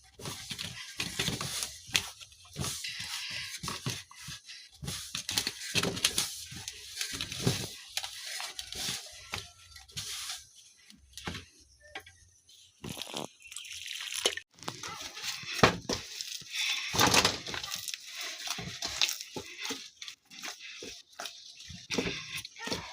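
Irregular rustling and scraping handling noises with short knocks, coming and going.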